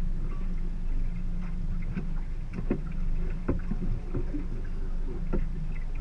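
Low steady rumble of water against the hull of a small fishing boat at rest on a river, with a few light knocks and slaps at irregular intervals.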